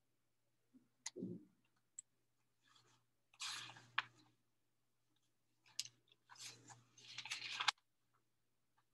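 Faint clicks and a soft thump about a second in, then two short stretches of scratchy rustling with clicks, about three and a half and six and a half seconds in.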